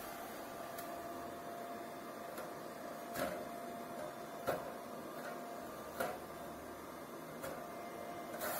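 Small cooling fan of an IGBT inverter welding machine running with a steady whir and a thin steady tone, fairly loud for so small a fan. Four short knocks sound as the machine's sheet-metal case is handled.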